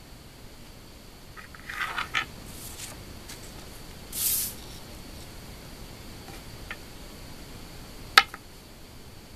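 A small plastic die being handled on a wooden tabletop: a few light clicks and knocks about two seconds in and a brief brushing sound past the mic a little after four seconds. Then one sharp click as the die is set down on a paper card.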